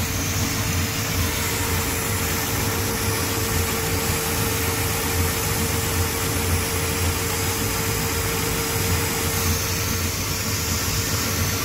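1987 Chevy square-body truck's engine idling steadily, with a steady whine over the low running. The engine is freshly tuned up with a new distributor cap and plug wires, and still has a bit of a miss.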